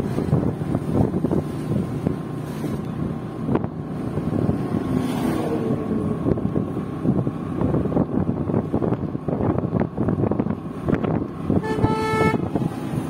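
Road traffic noise with wind buffeting the microphone, and a vehicle horn honking once, briefly, near the end.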